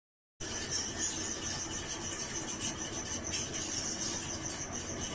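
Electric fan running with a steady, high jingling from inside, like ghungroo ankle bells. Nothing rubs on the outside; the owner suspects a failed bearing or loose bearing balls inside the motor.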